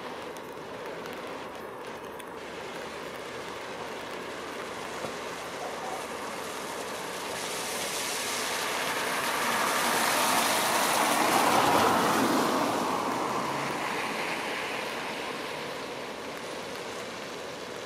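A passing road vehicle: a tyre hiss that swells over several seconds, peaks about two-thirds of the way through and fades away, over a steady background hiss.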